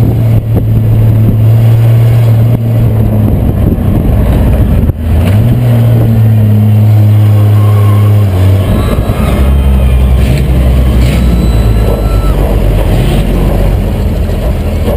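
Loud, open-engined six-cylinder race car engine running at a steady pitch. It dips briefly about five seconds in and comes back slightly higher. About eight and a half seconds in it drops to a lower, deeper note.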